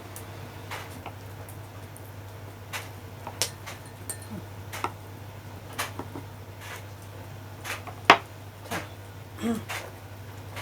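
Scattered light clicks and clinks of cutlery and dishes during a meal, the sharpest about eight seconds in, over a steady low hum.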